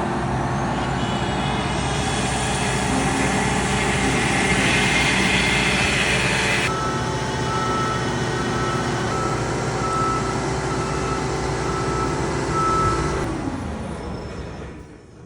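A combine harvester's diesel engine running steadily while a back-up alarm beeps about once a second through the middle of the stretch. Near the end the engine shuts off and winds down.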